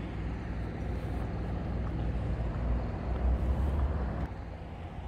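Low, steady rumble of a vehicle engine running close by, over general street noise; it drops away suddenly a little after four seconds in.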